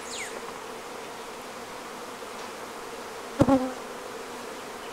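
A honeybee colony in an open hive humming steadily as it calms down. About three and a half seconds in there is a single short, sharp knock.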